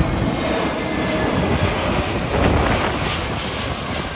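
Jet engines of an IndiGo Airbus A320-family airliner on final approach, passing low overhead: a loud, steady rushing noise with a faint whine, swelling about two and a half seconds in and then fading as it moves away.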